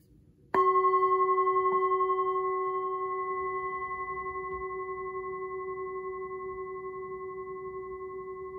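Metal singing bowl struck once about half a second in, then ringing on with a steady deep tone and several higher overtones, fading slowly with a gentle pulsing waver.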